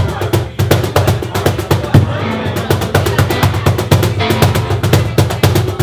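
Live music: a cajón played by hand in a quick, steady rhythm, its deep bass tone under sharp slaps, with a woman singing over it.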